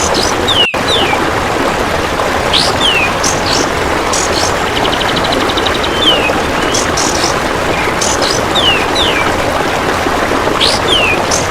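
Kapas tembak bulbul singing short, clear falling whistle notes again and again over steady rushing water, with a fast buzzing insect trill, the golden grasshopper (belalang emas), about five seconds in. The sound drops out briefly less than a second in.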